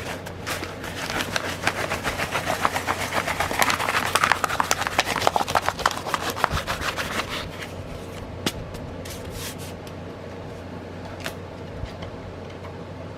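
Plastic packaging handled and crinkling, a dense rustle for about seven seconds, then a few light clicks and taps.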